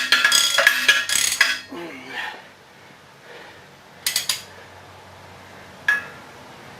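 Metal parts of the jackshaft assembly clinking and rattling, several quick ringing clinks a second for about the first second and a half. Then quiet shop room tone, broken by a short cluster of clinks about four seconds in and one more near six seconds.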